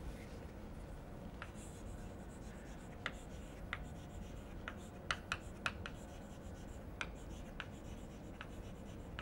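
Chalk writing on a chalkboard: a string of short, sharp, irregular taps and light scratches as the letters are formed, over a faint steady room hum.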